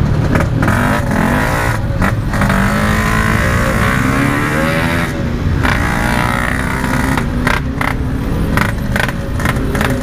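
Yamaha RX-King single-cylinder two-stroke with a stock-style packed aftermarket exhaust, its revs rising and falling over and over as the throttle is blipped in slow traffic. The engine won't hold a steady idle, so it has to be kept revving.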